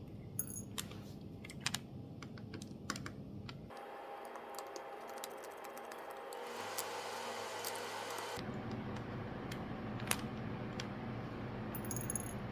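Scattered light clicks and taps of a small Phillips screwdriver working screws out beside the charging port of an original Nintendo Switch's plastic case.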